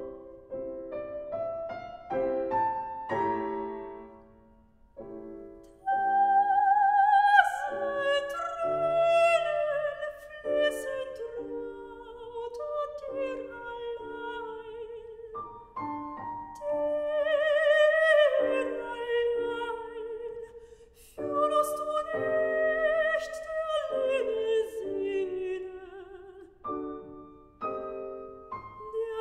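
A soprano singing an operatic aria with wide vibrato, accompanied by a grand piano. The voice breaks off briefly about five seconds in, then re-enters on a high held note.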